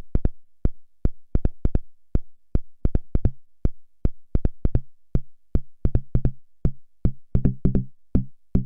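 Korg Volca Keys synth signal passed through a Moog Rogue's filter and envelope, gated by a step sequencer into a fast, repeating pattern of short plucked notes. The notes start as clicky blips and, from about three seconds in, grow longer and fuller in pitch as the contour-generator settings are opened up.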